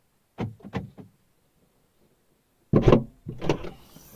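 A car's rear hatch being unlatched and opened from outside: three short knocks about half a second in, then a loud clunk and a second thump about three seconds in as the tailgate swings up and outdoor sound comes in.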